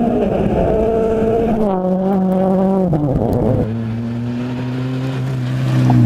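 Ford Fiesta RS WRC rally car's 1.6-litre turbocharged four-cylinder engine running at high revs on a gravel road. Its note drops sharply about three seconds in, then holds steady and is loudest as the car passes close by near the end.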